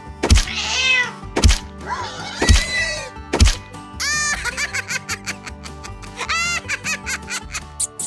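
Cartoon background music with a thudding beat about once a second, quickening in the second half. A high cartoon voice, the rat's, laughs several times over it.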